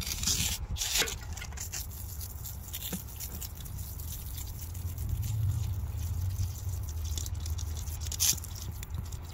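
Spray bottle squirting water onto the rock face in short hissing sprays: a couple at the start and another about eight seconds in, with light scraping and clicking between. A steady low rumble sits underneath.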